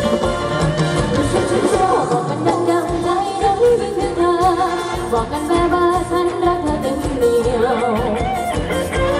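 Live Thai ramwong band music: a singer over a steady dance beat.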